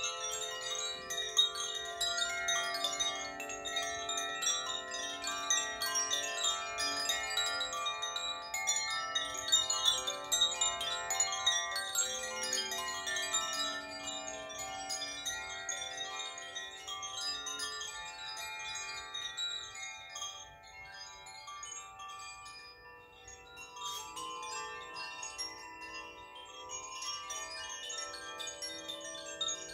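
Large hanging gongs played softly with a mallet: a wash of overlapping ringing tones with a high shimmer on top. The sound thins out about twenty seconds in and swells again a few seconds later.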